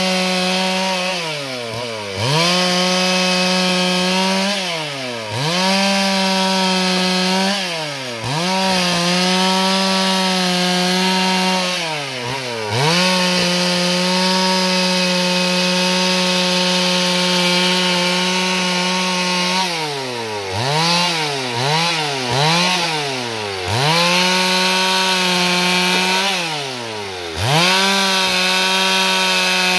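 Stihl MS 382 two-stroke chainsaw ripping a plank lengthwise along the grain, running at high revs in the cut. Every few seconds the engine speed falls away and climbs back, with a quick run of these dips about two-thirds of the way through.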